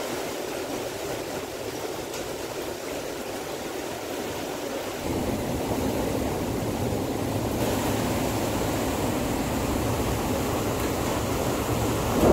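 Typhoon wind and heavy rain, a steady rushing hiss. About five seconds in a deeper rumble joins and stays, and there is a brief louder gust at the very end.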